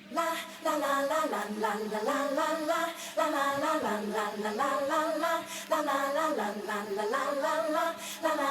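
Background pop music with a sung vocal melody and little bass.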